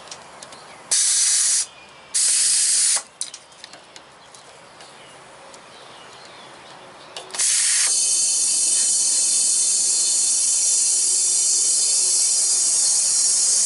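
Compressed air hissing through a straight brass air chuck pressed onto a lawnmower tire's valve stem, inflating the tire: two short blasts of under a second each near the start, then, from about seven seconds in, a steady hiss.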